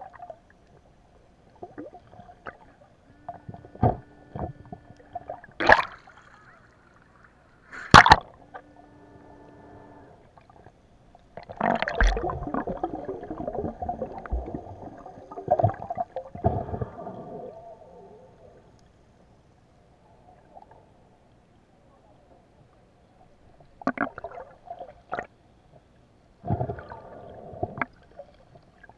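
Muffled underwater sound heard through an underwater camera: gurgling water broken by several sharp knocks, the loudest about six and eight seconds in. A longer stretch of churning water runs from about twelve to seventeen seconds, and a faint steady hum sounds twice, around four and nine seconds in.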